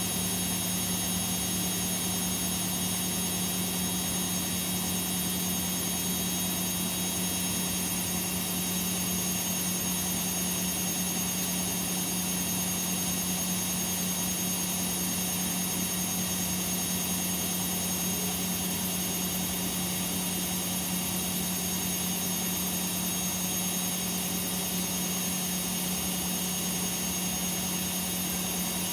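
Washing machines in a high-speed spin cycle, holding a constant speed: a steady hum with a strong low tone and thin high whining tones above it.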